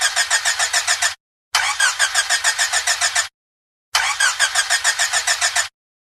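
Old car's starter motor cranking the engine in rhythmic pulses, about six a second, in three separate tries of a couple of seconds each with short pauses between; the engine never catches: a stalled car that won't start.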